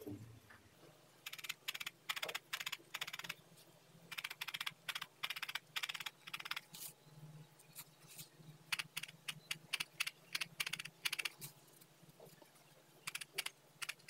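Felting needle stabbing rapidly into wool on a foam pad: a quick, crisp poking in four runs of a couple of seconds each, with short pauses between.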